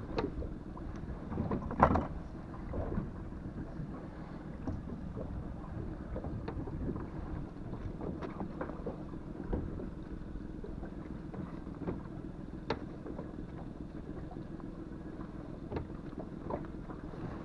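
Steady low rumble of wind on the microphone and sea water against a drifting inflatable boat's hull, with a few short sharp knocks, the loudest about two seconds in.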